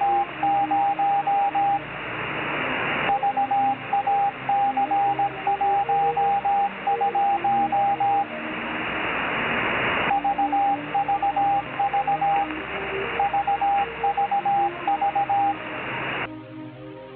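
A 10-meter amateur-band Morse code (CW) beacon heard through a shortwave web receiver: a single steady beep keyed on and off in dots and dashes over band hiss. The hiss swells up in the gaps between groups of code. Near the end the code stops and music begins.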